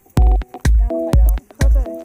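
Background electronic music with a steady kick drum about twice a second under sustained synth chords.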